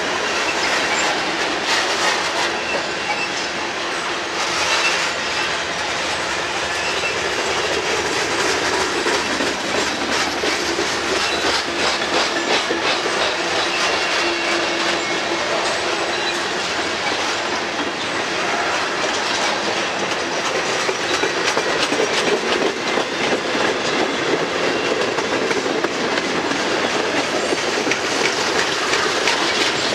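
Freight cars (covered hoppers and boxcars) of a long mixed freight train rolling past, with a steady rumble and the clickety-clack of wheels over the rail joints.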